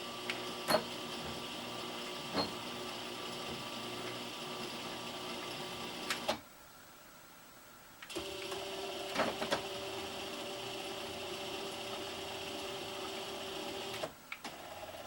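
Axis drive motors of a prototype three-axis CNC mill running all three axes at once, a steady machine whine with a few sharp clicks. The motion stops for about two seconds partway through, then starts again and dies away near the end.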